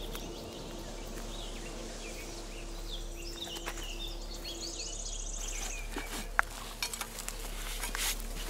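Small birds chirping in the forest over a low steady hum; from about six seconds in, a small shovel scrapes and chops into the soil, a run of short knocks.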